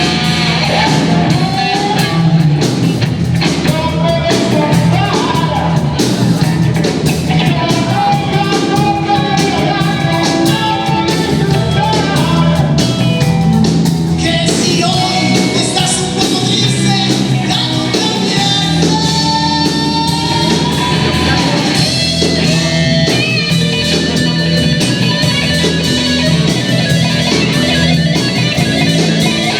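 A blues-rock band playing live: electric guitar over bass and drums, with pitch bends in the melody line.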